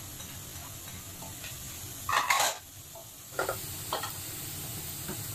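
Pork and pork intestines sizzling as they fry in a pot, with a spatula scraping the intestines out of a bowl into the pot; a louder scrape comes about two seconds in, then a few light knocks as the bowl and spatula are set down.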